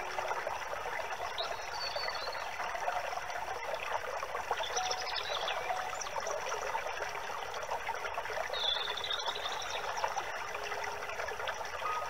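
Steady trickle of running water in a stream, with a few short bird chirps over it, about three times.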